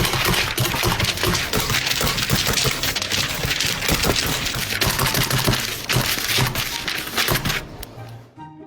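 Dense, rapid clicking and crackling, loud and continuous, fading out about eight seconds in, with a few music notes starting near the end.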